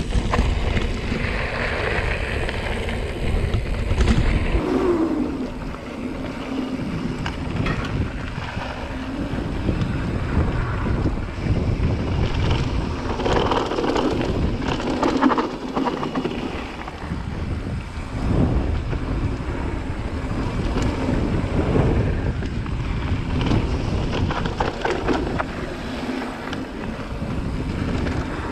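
Wind buffeting the microphone during a fast mountain-bike descent on a Cube Stereo 150 TM full-suspension bike. Underneath are the tyres rolling over the dirt trail and the bike rattling and knocking over bumps.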